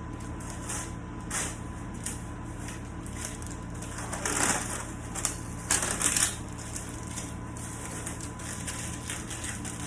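Tape being peeled off the underside of a freshly poured epoxy tabletop: irregular crackling rips, the loudest two near the middle, over a steady low hum.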